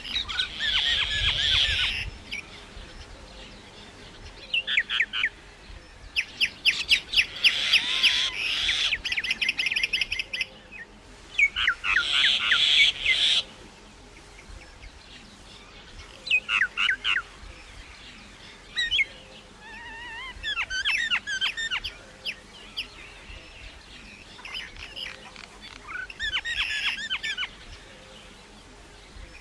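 Myna calling in bouts of fast, high chattering notes, several separate outbursts with pauses of a few seconds between them.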